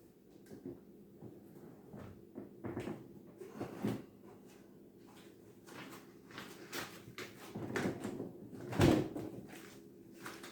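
Scattered knocks, bumps and rustles of household things being moved and handled, with one louder thump about nine seconds in.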